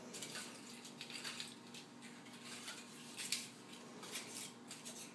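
Faint rustling and light taps of cupcake liners being pulled apart and set into a metal mini muffin tin, a handful of soft strokes with one slightly louder tap a little past the middle.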